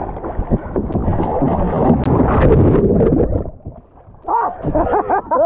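Sea water splashing and wind buffeting the microphone as a two-person sit-on-top kayak capsizes, with two sharp knocks about one and two seconds in. The sound drops away briefly just before four seconds, then short yelps from the men in the water.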